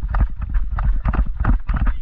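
Quick running footsteps, several a second, with knocking and thumping that carries heavy low rumble.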